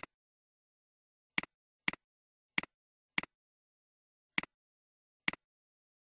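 Computer mouse button clicks, seven of them at uneven intervals. Each is a sharp snap followed at once by a softer one, the press and release of the button.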